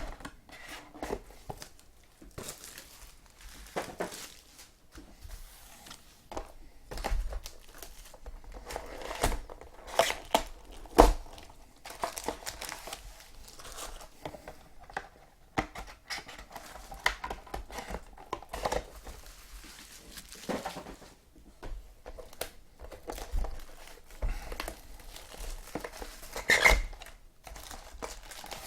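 Plastic packaging of trading-card boxes and packs crinkling and tearing as it is opened by hand. There are irregular crackles throughout, with a few sharper, louder knocks in the middle and near the end.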